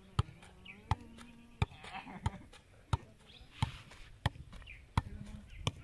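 A football being juggled on grass: a short thud at each touch of foot and thigh on the ball, evenly spaced at about one touch every 0.7 seconds, nine touches in all.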